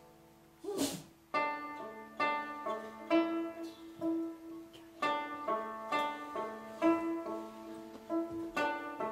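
A plucked string instrument plays a slow melody of separate ringing notes over a steady drone of sustained strings. A single sharp struck sound comes about a second in.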